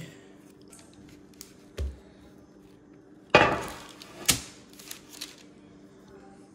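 A parchment-lined metal baking sheet handled on a granite countertop: a soft thump, then a sharp clatter a little past three seconds in with paper rustling after it, and a few lighter knocks.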